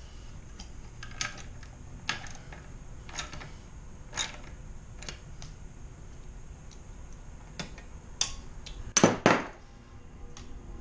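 Hand tools and metal parts of a key machine being handled while its bolts are tightened: scattered sharp metallic clicks and clinks, about one every second, with a louder pair of knocks near the end.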